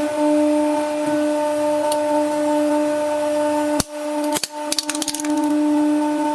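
Hydraulic press running with a steady pitched hum. A little under four seconds in the hum breaks off with a sharp click, followed by a quick run of clicks and crackles before the hum resumes.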